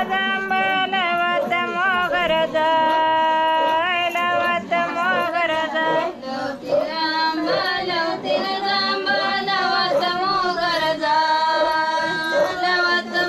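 Female voices singing a traditional folk song, with long held notes and wavering pitch; the song is sung to send off the goddess Gauri.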